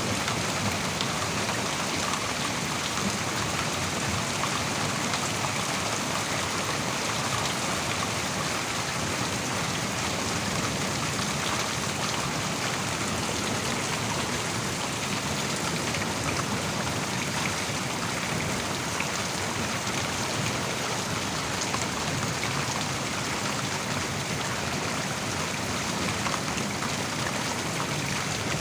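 Heavy rain pouring down steadily, a dense, even hiss with no break.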